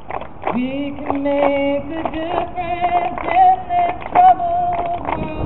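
Women's voices singing slow, held notes with vibrato, the pitch stepping up a couple of times, over irregular sharp clicks and knocks.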